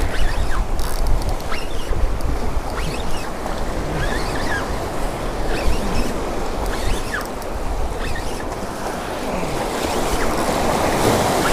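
Waves surging and breaking over jetty rocks, a steady rush of surf with wind buffeting the microphone.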